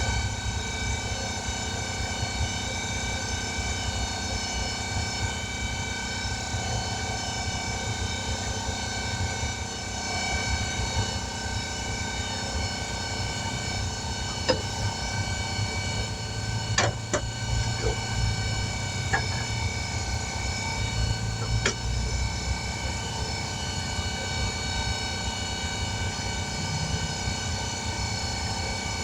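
A machine runs steadily, a whine of many even tones over a low rumble. A few sharp clicks and knocks of tools come through around the middle.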